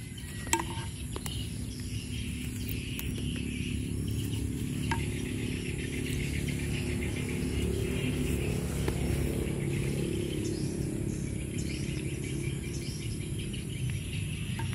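Insects chirring and birds chirping, over a steady low rumble with a few faint clicks near the start.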